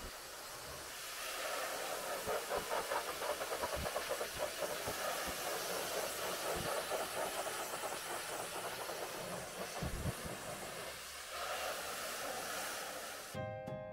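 Pressure-washer jet spraying and hissing onto a foam-covered car body, a steady hiss with a fluttering edge that eases off about 11 seconds in. Music cuts in just before the end.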